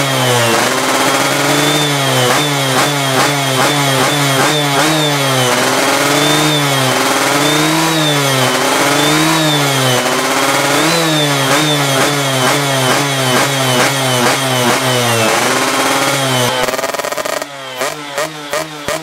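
Yamaha F1ZR's 110 cc two-stroke single-cylinder engine being revved with repeated throttle blips, its pitch rising and falling, some blips quick and some slower swells, to check the carburettor tuning. Near the end it drops back to an uneven, pulsing two-stroke idle.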